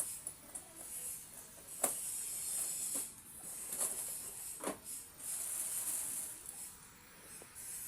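Plastic packaging or a plastic bag rustling and crinkling as it is handled, with a few sharp crackles along the way.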